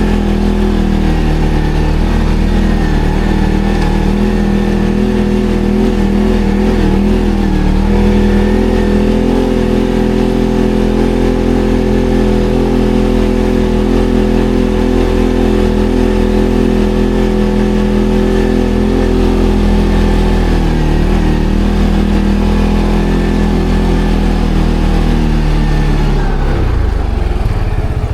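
ATV engine running under way, holding fairly steady revs that step up about eight seconds in and drop away in the last couple of seconds as it slows.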